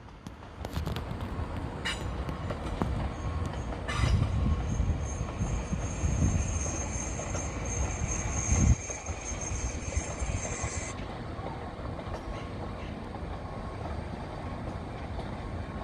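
A train moving through the station with low running noise and a couple of clanks. From about four seconds in there is a high, steady squeal of wheels on the rails, which stops abruptly near eleven seconds.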